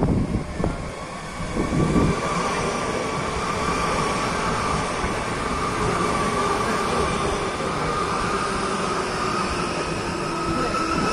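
Electric multiple-unit commuter train of Mallorca's SFM network arriving and running slowly past close by. Its traction motors give a steady whine of several high tones over the rumble of the wheels, with low buffeting in the first two seconds.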